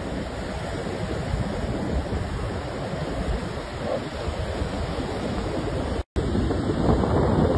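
Ocean surf breaking on a beach, with wind buffeting the microphone. The sound drops out for a split second about six seconds in, then returns slightly louder.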